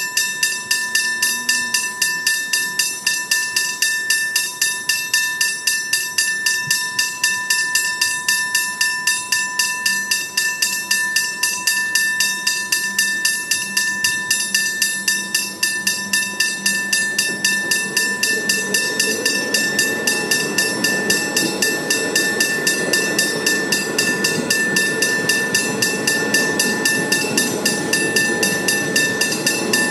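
Level crossing warning bell ringing in rapid, even strokes. From about halfway, the rumble of an electric suburban train builds as it approaches and passes over the crossing.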